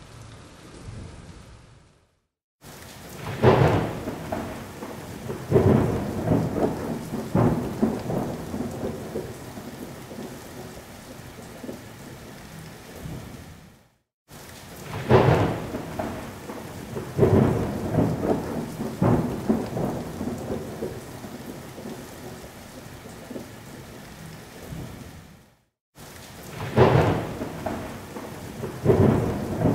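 Thunderstorm: steady heavy rain with sharp thunder cracks, each trailing off into rolling rumble, every couple of seconds. The sound cuts out completely for a moment about two seconds in, again about halfway and again near the end, and each time the pattern of cracks starts over.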